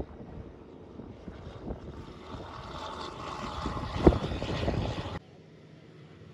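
A loaded tipper truck's diesel engine and tyres passing by, growing louder to a peak with a sharp thud about four seconds in. After an abrupt cut, a second truck and trailer is heard more quietly, with a steady low engine hum.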